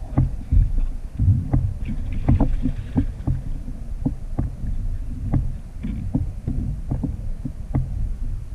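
Water slapping and knocking against a plastic fishing kayak's hull in irregular short knocks, over a steady low rumble of wind on the microphone.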